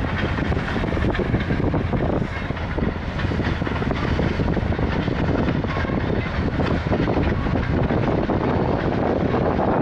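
Diesel freight locomotive's engine running in a steady drone as the train rolls along the track.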